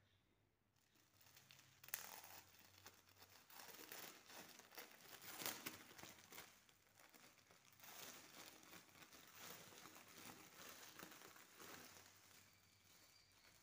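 Clear plastic wrapper of a folded paper sky lantern crinkling as hands handle it and slide the lantern out, with a sharp crackle about two seconds in and the loudest rustling in the middle, fading near the end.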